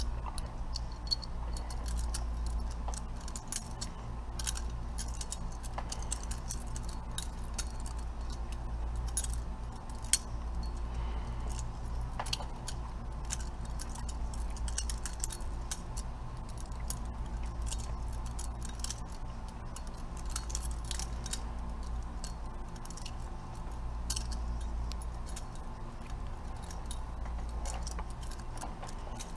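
Butterfly knife (balisong) being flipped: quick, irregular metallic clicks and clacks as the handles swing around the blade and tap together, over a steady low rumble.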